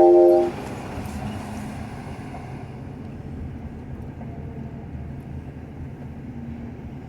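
A loud, steady horn-like tone cuts off about half a second in. After it comes the steady road and wind rumble of a moving car, heard from inside the cabin.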